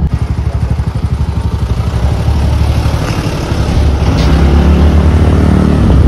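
Motor scooter riding along a road, its engine running with a rumble of wind over the microphone; from about halfway a steady engine hum comes through more strongly.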